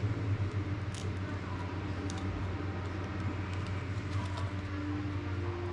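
A steady low hum, with a few light clicks and crinkles as a small clear plastic piece is handled.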